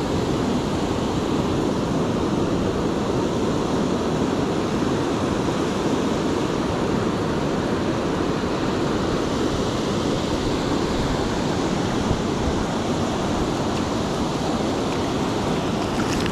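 Steady rushing noise of sea surf and wind blowing across the microphone.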